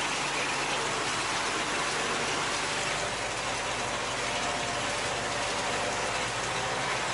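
Steady running noise of farm machinery heard from inside a vehicle cab, with a low engine hum under an even hiss, as a Niva SK-5 combine harvester works alongside and unloads grain into a trailer.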